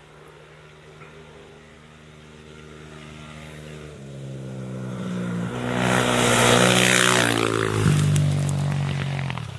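Rally car engine coming closer on a gravel forest stage, getting steadily louder and changing gear about four seconds in and again near eight seconds. It is loudest six to seven seconds in, with a rush of gravel and tyre noise, and drops away suddenly near the end.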